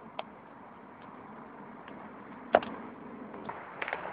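Faint, steady rumbling roar of a distant jet airliner climbing out after takeoff, with several sharp clicks over it, the loudest about two and a half seconds in.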